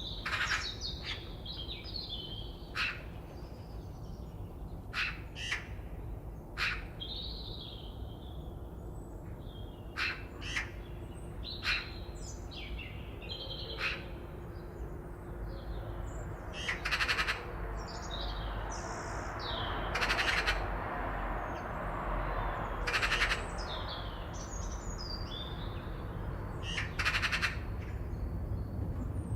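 Wild birds calling and singing: many short chirps and whistled phrases, with louder calls about every three seconds in the second half, over a low steady rumble.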